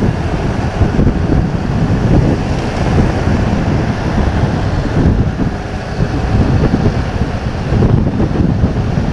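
Wind buffeting a motorcyclist's external action-camera microphone at riding speed: a loud, rough low rushing that swells and eases, with the motorcycle's road noise beneath.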